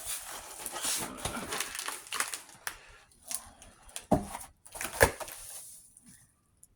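Cardboard box and packing material rustling and scraping as BMX handlebars are slid out, with two sharp knocks about four and five seconds in.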